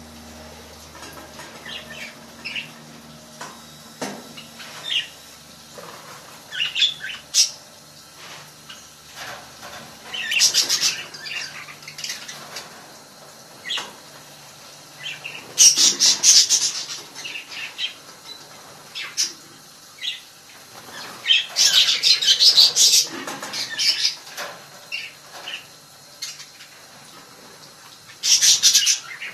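Pet budgies flapping their wings while bathing in water, in several rustling bursts of a second or two, with short chirps in between.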